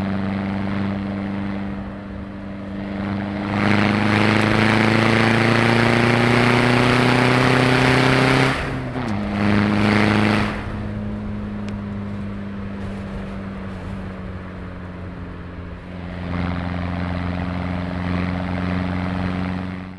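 Vauxhall Astra CDTi diesel engine heard through a decat and straight-through stainless exhaust, idling, then revved and held for about five seconds with the pitch slowly climbing. It drops back sharply, gets one short blip of throttle, and settles to idle, growing louder again near the end.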